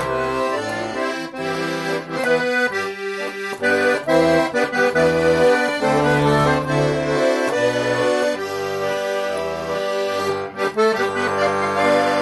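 Russian garmon in C major with four hand-assembled reed sets per note, playing a tune: the melody on the right-hand buttons over a left-hand bass and chord accompaniment whose bass note changes every second or so. A full, powerful reed tone.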